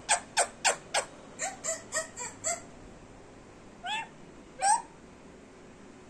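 Indian Ringneck parrot calling: a quick run of short, sharp, high calls, about four a second, then two separate rising calls a little later.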